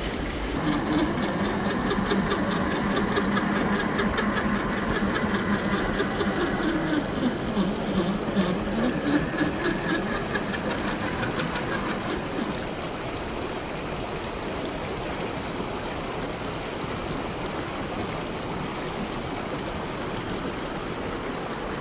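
A 1/10-scale RC crawler's brushed 550 electric motor and geared drivetrain whining, its pitch rising and falling with the throttle, with a light fast ticking. The whine stops about halfway through, leaving a steady rush of stream water.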